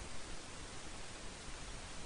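Faint steady hiss of microphone background noise.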